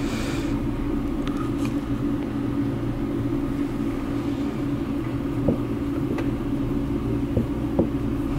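Grey kitten purring steadily while being stroked, a continuous low rumble, with a few faint clicks along the way.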